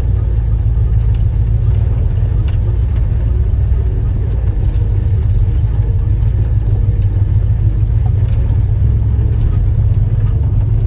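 Lifted Jeep's engine running at low speed as it crawls over a rocky trail, with a steady low rumble and scattered clicks and rattles as it jolts over the rocks.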